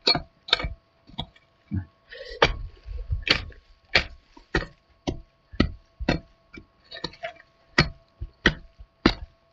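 Iron-bladed hoe chopping repeatedly into dry, clumpy soil, about two sharp strikes a second.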